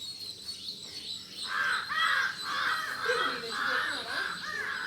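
Crows cawing: a fast run of repeated harsh caws that starts about a second and a half in.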